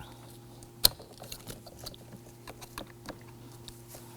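Small plastic clicks and ticks from a pocket screwdriver prying at the locking tab of a wiring connector on the back of a car door's master switch panel, with one sharp, louder click about a second in. A faint steady hum runs underneath.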